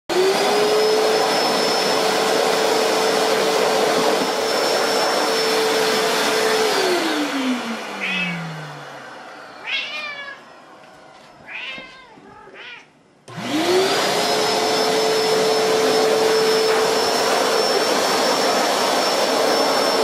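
Vacuum cleaner running with a steady whine that winds down about seven seconds in. In the quieter stretch a cat meows several times. Then the vacuum starts again and quickly spins up to full speed.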